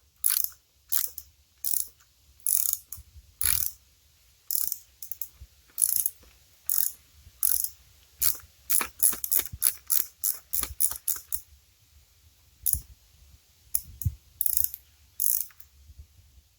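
Hand socket ratchet clicking in short back-and-forth strokes as a bolt on the engine's head cover is backed out. The clicks come about one every half second to second, quicken to a fast run about eight to eleven seconds in, and pause twice near the end.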